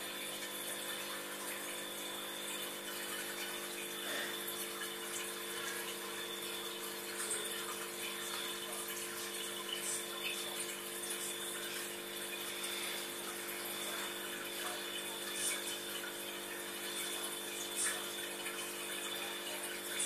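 Aquarium running: a steady hum from the tank's pump under a constant bubbling of water from the air stone, with brief pops and splashes now and then.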